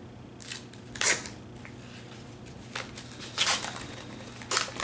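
Paper rustling in several short, crisp bursts as a greeting card is opened and handled. The loudest burst comes about a second in.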